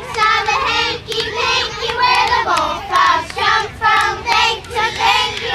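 A group of young girls singing together in unison, a rhythmic song with about two strong beats a second.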